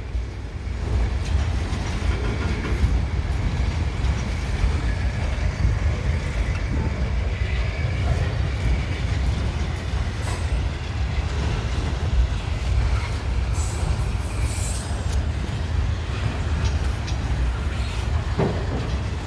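Freight train rolling past at close range: a steady rumble of cars and wheels on the rails, with a few brief high-pitched sounds about halfway through.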